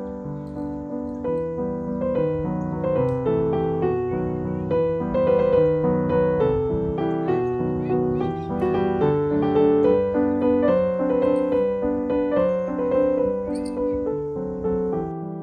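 Background piano music: a steady flowing melody of single notes over chords.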